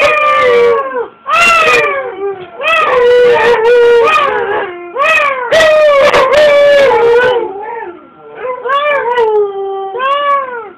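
Siberian husky "talking": a string of loud, drawn-out howl-like calls that waver and fall in pitch at the end of each, one after another with short breaks.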